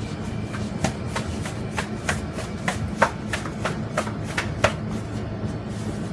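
Hands slapping and working fresh pizza dough on a floured counter: an irregular run of sharp slaps and taps that stops a little before the end, under steady background music.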